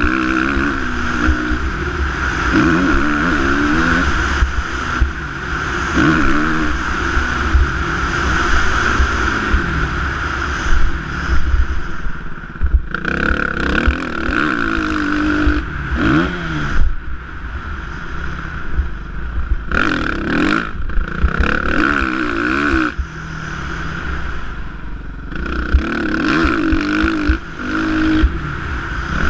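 Suzuki motocross bike engine revving up and down over and over as the rider works the throttle through ruts and jumps, dropping away briefly several times when he shuts off. Heavy wind rumble on the camera microphone runs underneath.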